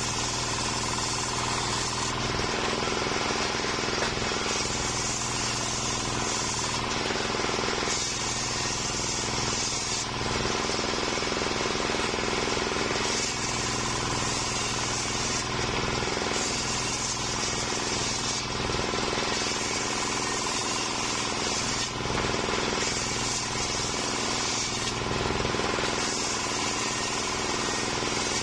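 Homemade table-mounted circular saw running steadily while it rips a waru (sea hibiscus) log into slabs and boards. The high cutting noise of the blade in the wood swells and fades in passes of a few seconds as each piece is pushed through.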